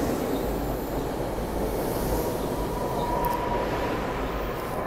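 SEPTA Regional Rail electric train passing close by, a steady rumble and rattle of wheels on the rails. A faint high tone rises out of it for about a second just past the middle.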